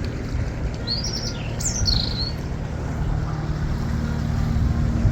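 A canal boat's engine running steadily with a low hum that grows a little louder toward the end. A small bird chirps a short run of quick high notes between about one and two and a half seconds in.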